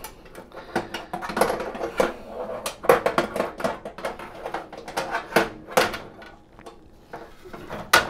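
Metal rotisserie spit and wire lift tool clinking and scraping against the inside of a toaster oven: irregular clicks and knocks, with a quieter stretch near the end.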